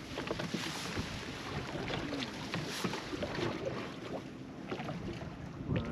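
Wind and water noise around a small fishing boat, with scattered light knocks and rattles of gear being handled.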